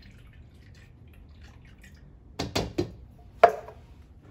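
Three quick knocks, then about a second later one louder clink with a short ring: a can or kitchen utensil striking a ceramic mixing bowl.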